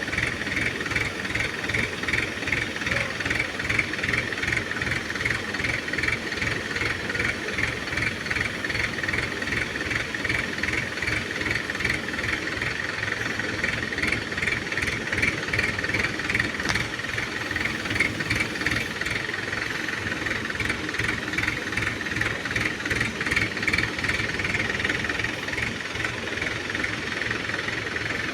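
Diesel engine of a 14-ton Hydra mobile crane running steadily under work, with a rapid even low thrumming and a higher pulsing whine on top.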